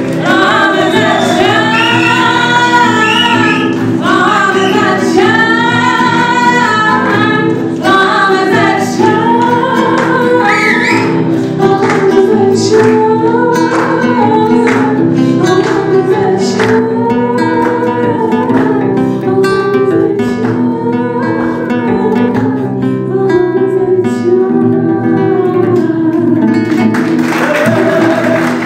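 Live singing with a strummed acoustic guitar accompanying it. The song ends about a second before the end and the audience begins to applaud.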